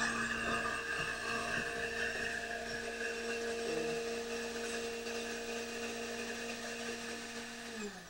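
Countertop blender motor running steadily, puréeing a liquid mix of vegetable stock with pear, radish, onion and apple for a water-kimchi broth. It spins down with a falling pitch near the end.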